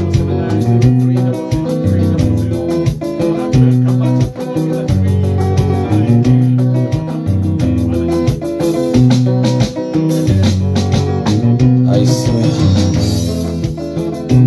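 Live mugithi band playing an instrumental passage: electric guitar over a bass line and a drum kit keeping a steady hi-hat beat, with a cymbal wash near the end.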